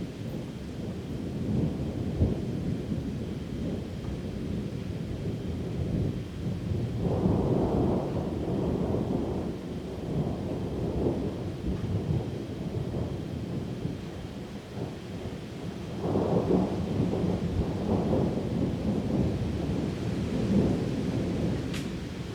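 Thunder rumbling through a heavy downpour, the rolls swelling about a third of the way in and again past the two-thirds mark, over a steady hiss of rain.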